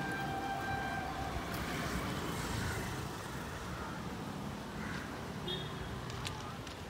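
Steady rumble of distant road traffic and urban background noise, with a held tone fading out in the first second or so and a short high chirp about five and a half seconds in.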